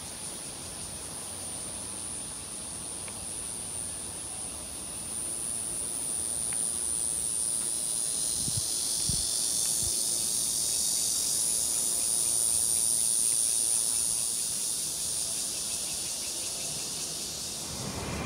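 Steady, high-pitched chorus of insects singing in the trees, swelling through the middle, with a few soft knocks around nine seconds in. It gives way near the end to a broader, lower rumble.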